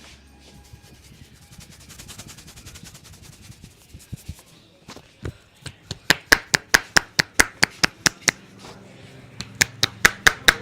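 Barber's hands rubbing and working over a person's head, then from about six seconds in a fast, even run of sharp hand chops and slaps on the head, about five a second, with a short break before they start again near the end.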